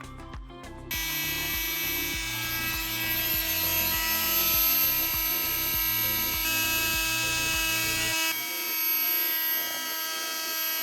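A small electric power tool running at a steady high whine over background music with a beat; the music drops out near the end while the tool keeps running.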